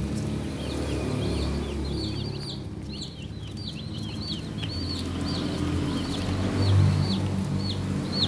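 A group of young chicks peeping: many short, high, downward-sliding peeps overlapping several times a second. Underneath is a low steady hum that grows louder in the second half.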